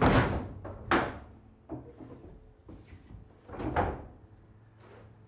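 Knocks and bumps of hands and tools on an old solid-wood panelled door lying on a plywood worktable. Two sharp knocks come at the start and about a second in, then softer bumps, with a longer thud near four seconds.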